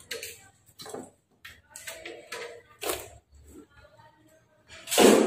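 Scattered clicks, taps and knocks of gloved hands handling an iNGCO MMA-3202P inverter welding machine at its front panel. A much louder, dense noise sets in suddenly near the end.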